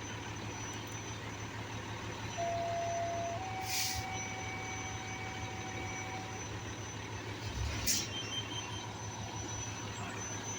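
A large vehicle idling with a steady low hum. Two short hisses, about four and eight seconds in, the second with a low thump. Between them a steady tone starts about two seconds in, steps up slightly in pitch and stops about six seconds in.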